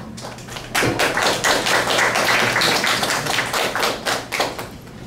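A small audience clapping. The applause starts abruptly about a second in and dies away near the end.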